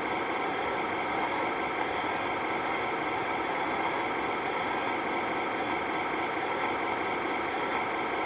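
Steady, even whirring noise with a faint constant hum underneath, unchanging throughout.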